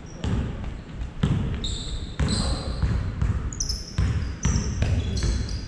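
A basketball being dribbled on a hardwood gym floor, bouncing about twice a second with the thuds ringing through the hall, with sneakers squeaking on the court.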